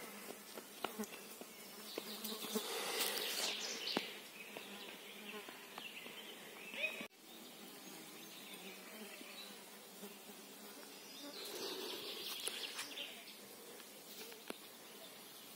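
Flying insects buzzing close to the microphone, faint, swelling louder twice as they pass near, with a few light ticks in between.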